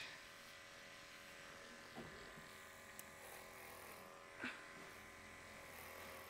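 Liveryman Harmony Plus cordless horse clippers running, a faint steady electric buzz, with a few short louder sounds over it.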